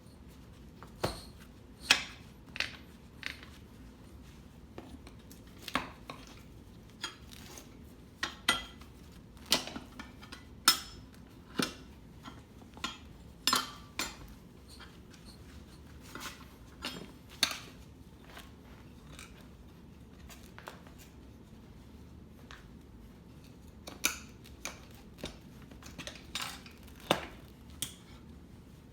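Steel tire spoons clinking and scraping against a spoked dirt-bike wheel rim while prying the tire bead off: irregular sharp metallic clinks and knocks, with a lull of a few seconds in the middle.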